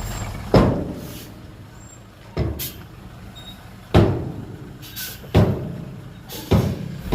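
Heavy machinery loading a dump truck: five loud bangs about one and a half seconds apart, each ringing briefly, over a steady engine rumble.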